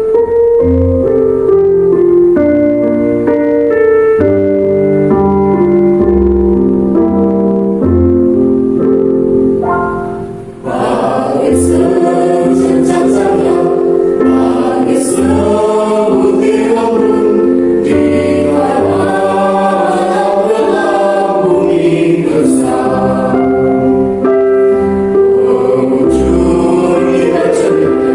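Instrumental accompaniment plays an introduction of held chords with a pulsing bass, then about ten seconds in a primary-school children's choir comes in singing over it.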